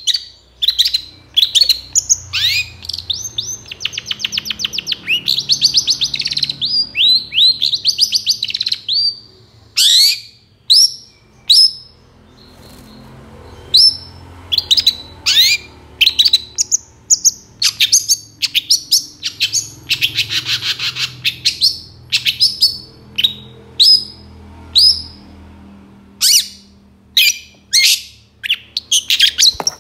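Long-tailed shrike (cendet) in full song: a fast series of sharp, high, falling notes, broken twice by long harsh rattling chatters, once near the start and again about two-thirds of the way through.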